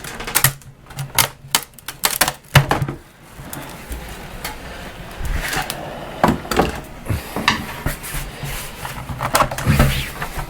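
A screwdriver prying around the edge of a fiberglass layup in its mold, working the part loose: irregular sharp clicks and snaps, with a stretch of steadier scraping in the middle.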